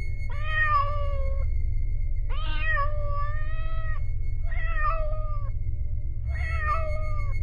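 A cat meowing four times, long drawn-out meows about a second apart, over a low steady drone.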